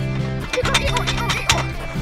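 Background music: steady held low notes with a few sharp percussive hits in the second half.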